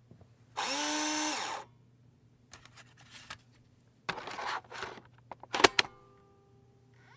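A computer disc drive working: its motor whirs up in pitch for about a second and stops, then come mechanical rattles, a short whir and a couple of sharp clicks as the disc is taken in and seeked, ending in a faint steady hum.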